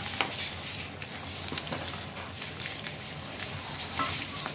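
Egg-coated potato patties (perkedel kentang) deep-frying in hot oil in a wok: a steady crackling sizzle with scattered pops, and a sharp tap just after the start.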